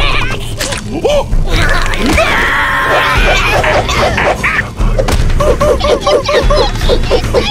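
Cartoon soundtrack: music mixed with slapstick thumps and crashes, and short rising-and-falling squeaky sounds repeated rapidly in the second half.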